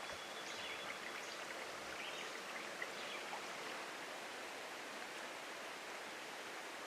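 Small forest trout stream flowing: a steady, even rush of running water.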